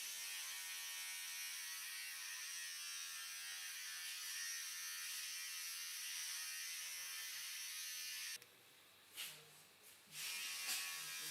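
A small handheld electric motor buzzing steadily. It switches off about eight seconds in, and after a couple of short soft knocks it comes back on about two seconds later.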